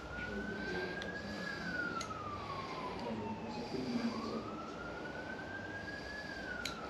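A siren wailing in slow rising-and-falling sweeps, one cycle about every four and a half seconds, with a few sharp clicks.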